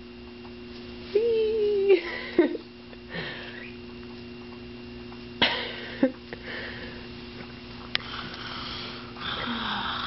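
Close-up sniffing and breathy noises with a short whining sound about a second in and a few brief sharp sounds, over a steady low hum.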